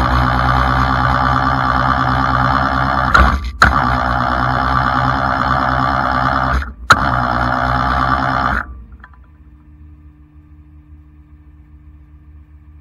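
Rollback tow truck's hydraulic winch running under load with a steady high whine. It stops briefly twice, then cuts off about two-thirds of the way through, leaving a low steady engine hum.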